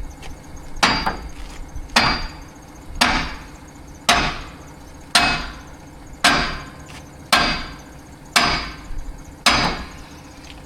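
Hammer blows on a narrowboat's metal tiller stock, driving it down to free it from the rudder: nine even strikes about a second apart, each with a short ringing tail.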